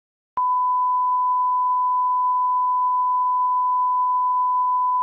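1 kHz line-up test tone of the kind that goes with colour bars: a single steady beep that begins with a click just under half a second in and holds at one pitch and level.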